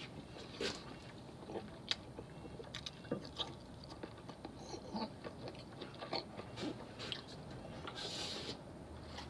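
Scattered light clicks and knocks at irregular intervals, with a brief hiss about eight seconds in.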